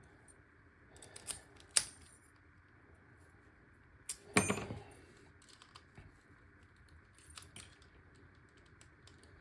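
Small metallic clicks and clatter from handling an American Lock AL1100 padlock and tools while taking it apart. A sharp click comes about two seconds in, and a louder metal clatter with a short ring comes a little before halfway.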